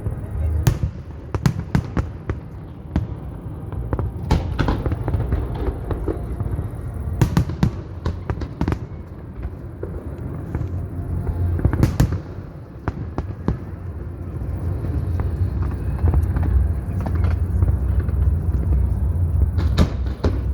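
Large fireworks display: aerial shells bursting in sharp bangs at irregular intervals, a dozen or so, over a steady low rumble.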